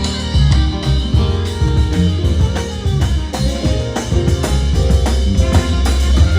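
Music with a drum beat, heavy bass and a plucked, guitar-like melody of short stepping notes.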